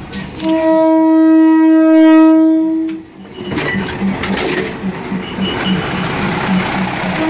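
State Railway of Thailand diesel railcar sounding one long, steady warning blast on its horn for about two and a half seconds as it enters the market. It then rolls past close by with a rhythmic clatter of about four knocks a second.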